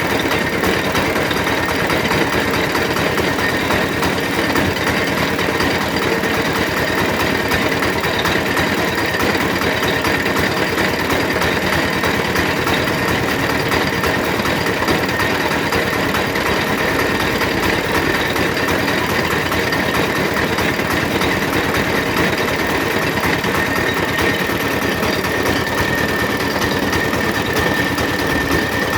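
Sugar cane juice machine running steadily, its motor and crushing rollers giving a continuous mechanical clatter with a steady high whine that grows a little stronger near the end.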